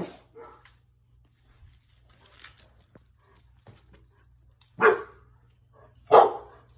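Dog barking twice, about five and six seconds in, after a quieter short sound at the start. The owner thinks the barking is set off by a newly set-up pool.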